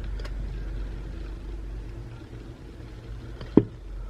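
Low steady background hum with light clicks of handling during phone reassembly, and one sharp click about three and a half seconds in, as a part or tool meets the phone or bench.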